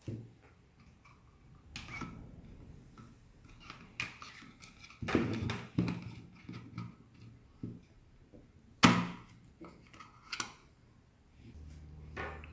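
Hands working on a plastic hair dryer's internal parts: a string of irregular knocks, clicks and rattles, the loudest about nine seconds in. A low steady hum comes in near the end.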